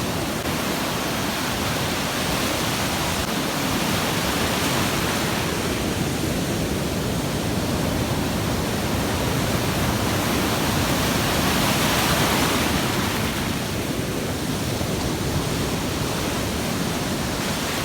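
Sea surf washing onto the shore: a steady rush that swells and eases as waves come in, loudest about two-thirds of the way through.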